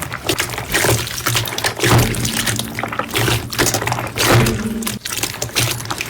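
Slime being squeezed and pressed by hand, giving wet, sticky clicks and squelches in quick, irregular succession.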